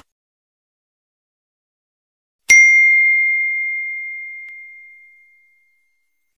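Notification-bell ding sound effect: a single bright ding about two and a half seconds in, ringing on one pitch and fading out over about three seconds.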